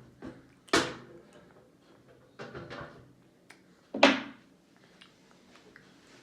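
A few sharp knocks and clatters, like hard objects hitting a surface. The loudest comes about four seconds in; another comes just under a second in, and a softer cluster around the middle.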